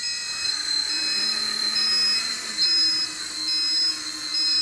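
Small electric motors of a 1/14 RC hydraulic wheel loader whining steadily as it is driven and the hydraulic pump runs, with a short high beep repeating a little under a second apart, six times.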